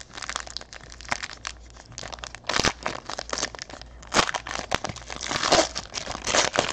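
Foil wrapper of a trading-card pack crinkling as it is pulled open and crumpled by hand, in a run of crackly rustles with louder bursts about four seconds in and near the end.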